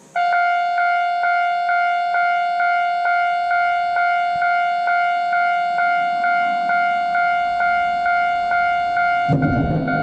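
Japanese railway level-crossing warning bell starts up suddenly, an electronic ding repeated a little more than twice a second. About nine seconds in, the loud rumble of the approaching 113-series electric train comes in under it.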